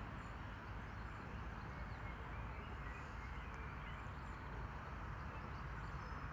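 Steady outdoor background: a low rumble and hiss with faint bird calls.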